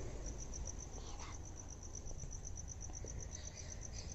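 A cricket chirping: a high-pitched, steady pulsed trill of about eight pulses a second, over a low rumble.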